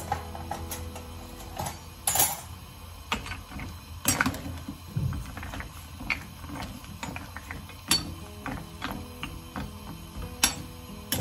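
Metal kitchen utensils clinking: cutlery rattling in a drawer, then a metal skimmer knocking against the rim and sides of a stainless steel pot of boiling pasta. The sharp clinks come every second or two.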